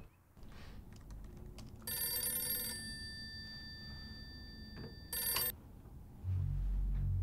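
Desk telephone bell ringing twice, a long ring and then a shorter one, with its tones hanging on between rings. A low pulsing bass starts up near the end.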